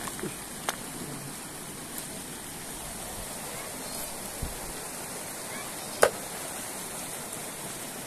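Steady rush of shallow river water running over stones, with a few light knocks of rocks shifting underfoot and one sharp click about six seconds in.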